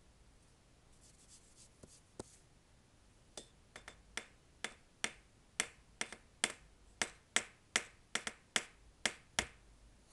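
A pen working on paper: a little faint scratching, then from about three seconds in a run of sharp taps, roughly two a second and unevenly spaced.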